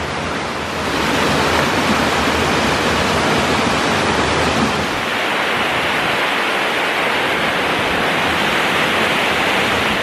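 Waterfall pouring, a loud, steady rushing of water with no change in its sound.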